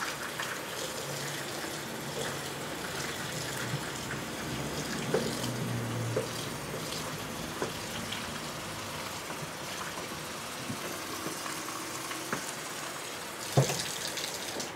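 Water running steadily from a kitchen faucet into a sink, with a few light clinks and a sharper knock near the end.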